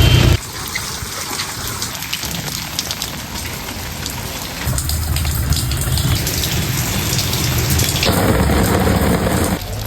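Heavy rain falling with a steady hiss, joined by a deep low rumble from about halfway through.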